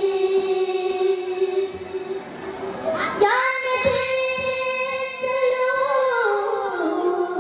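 Children singing a qawwali into microphones in long held notes. The melody slides up to a higher note about three seconds in and steps back down near the end.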